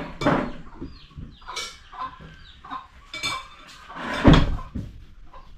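Chickens clucking with short, high calls, and one loud thump a little over four seconds in.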